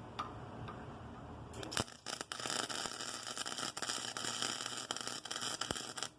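Flux-core MIG welder arc crackling as it burns .030 flux-core wire, with a dense hiss full of sharp pops. It starts about a second and a half in and cuts off suddenly just before the end.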